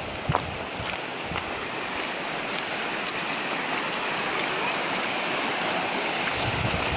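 River water rushing over rocks in shallow rapids: a steady wash of noise that grows slightly louder over the few seconds.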